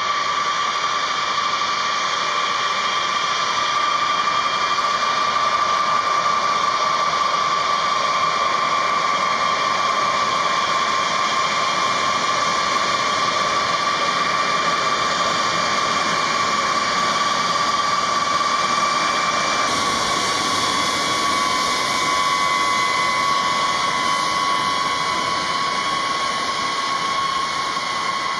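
Boeing B-52H's eight TF33 turbofan engines running at taxi power: a loud, steady high whine over a rushing hiss. The whine steps slightly lower in pitch about two-thirds of the way through.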